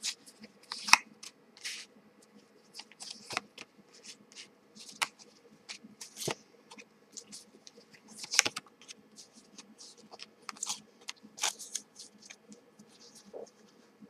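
A deck of tarot cards being shuffled and handled by hand, with cards then laid down: a string of irregular short card snaps and rustles.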